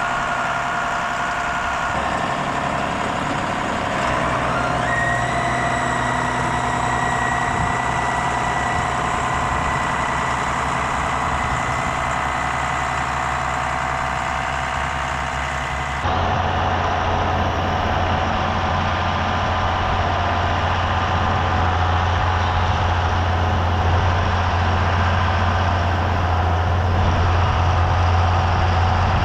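Farm tractor engines running steadily with a steady high whine over the hum. The sound changes abruptly about two, four and sixteen seconds in, as the shots change.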